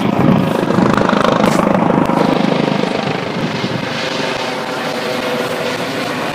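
Helicopter flying over, its rotor chopping rapidly with a steady whine beneath. Loudest in the first half, then easing a little.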